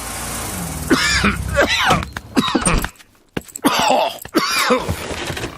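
A cartoon bear's voice, performed by a voice actor, coughing in a series of short, throaty, voiced coughs. The coughs come in two bouts, with a short pause near the middle. The coughing is the sign of the cough he has caught.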